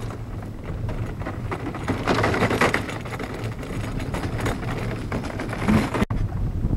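DN iceboat's runners hissing and chattering across the ice as the boat sails close past, with wind rumbling on the microphone underneath. The noise grows louder about two seconds in and breaks off abruptly near the end.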